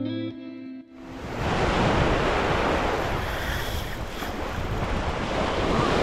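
Guitar music ends about a second in, giving way to small waves washing onto the beach, with wind rumbling on the microphone.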